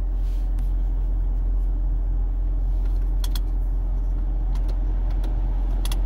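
Newly replaced HVAC blower fan of a 2012 Toyota Prius V running steadily behind the dashboard, air rushing out of the vents with no rumbling from the motor. A steady low hum sits underneath, with a few light clicks.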